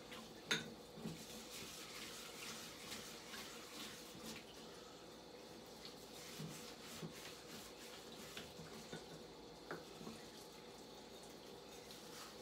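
Faint sink-side washing-up sounds: dishes and cutlery clinking lightly with water running, and a sharper clack about half a second in.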